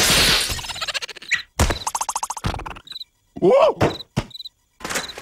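Cartoon slapstick sound effects: a loud crash at the start that dies away over about a second and a half, a short buzzing rattle, then a brief squeaky character vocalization that rises and falls in pitch.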